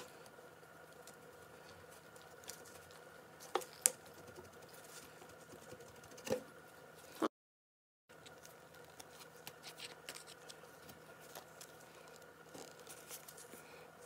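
Faint clicks and taps of small metal pump parts (gears, shaft) being handled and shifted by gloved hands while taking apart an oil burner fuel pump, with a few sharper clicks in the first half. A faint steady hum underneath, and a brief dropout to total silence a little past halfway.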